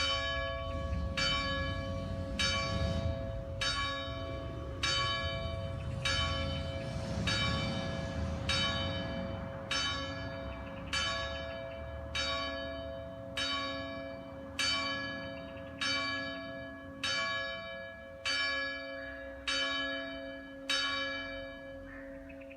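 Italian church bell ringing, struck about once a second, each stroke ringing out over a steady hum. The strokes come a little slower and quieter as it goes, and the last one falls shortly before the end.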